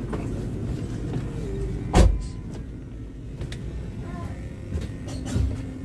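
Steady low rumble of a Scania K410 double-decker coach heard from inside its upper-deck cabin, with one sharp thump about two seconds in and a few lighter knocks.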